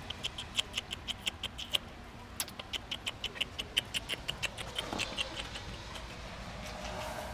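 A squirrel calling a rapid run of short, high chirps, about six a second, with a brief pause about two seconds in. Near the end a door creaks as it swings open.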